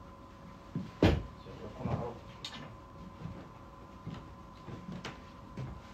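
Handling noise as a shirt is picked up and handled for a try-on: a sharp knock about a second in, the loudest sound, then softer knocks, fabric rustling and scattered light clicks.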